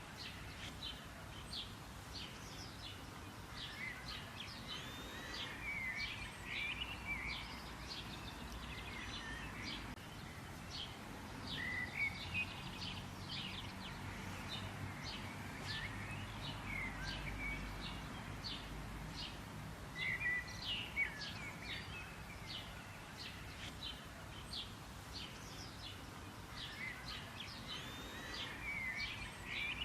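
Many birds chirping and calling, short quick notes and twittering whistles throughout, over a low steady background rumble.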